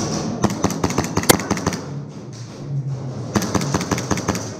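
Airsoft guns firing in two rapid bursts of sharp clicking shots, about ten a second: one from about half a second in lasting over a second, the other about three seconds in.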